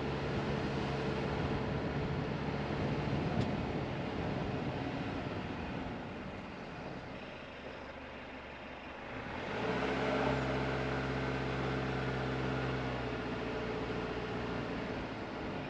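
Car engine hum and tyre noise on a paved road. The sound drops off as the car slows for a junction, then the engine picks up again about nine and a half seconds in and runs louder and steady.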